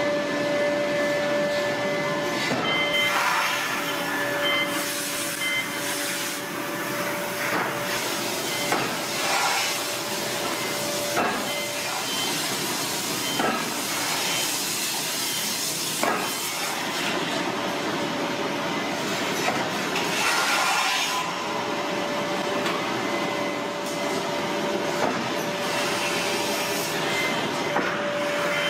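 Large hydraulic forging press and manipulator working a glowing steel billet: steady hissing machinery noise with a constant whine running under it. There are several spells of louder hissing and a few sharp knocks.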